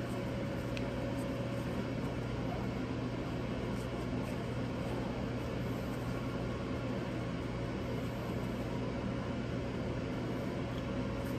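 Steady, even machine hum with a hiss, unchanging throughout, from a running kitchen appliance or fan.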